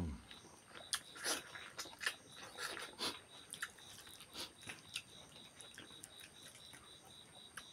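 Close-up mouth sounds of people eating rice and boiled beef leg with their hands: chewing and lip-smacking, heard as many short, wet clicks at an irregular pace.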